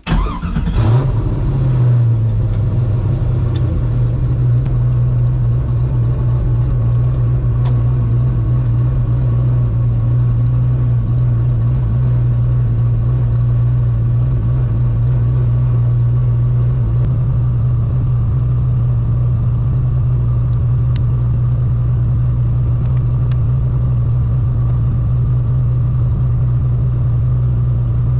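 Turbocharged 5.3 V8 car engine running at a steady speed, entering with a sudden loud burst and then holding one even tone with no revving.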